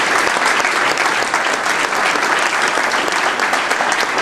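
Audience applauding: a room full of people clapping, a steady dense patter of many hands.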